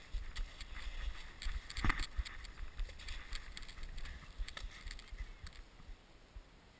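Sled sliding over packed snow: a low wind rumble on the microphone under scattered crunches and scrapes, with one louder scrape about two seconds in.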